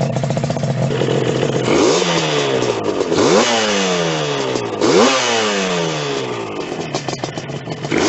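Yamaha RD 350 two-stroke twin with its original exhaust, idling and then revved sharply three times. Each blip of the throttle drops slowly back down toward idle.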